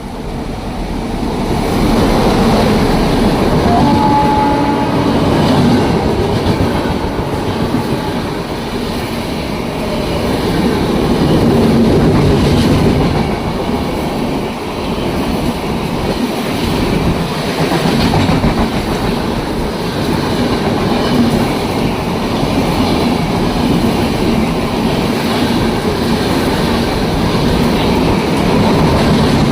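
Kerala Express passenger train with LHB coaches passing through the station at speed without stopping: a loud, steady rush and rumble of wheels on rail, with a clickety-clack over the joints.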